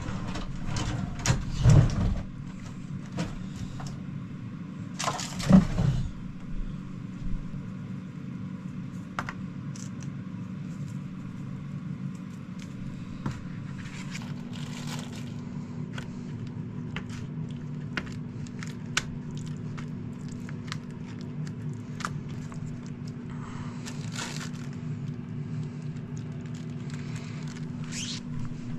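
Steady hum of a small electric fan running, with scattered clicks, cracks and scrapes of food being seasoned and mixed by hand, and a few louder knocks in the first several seconds.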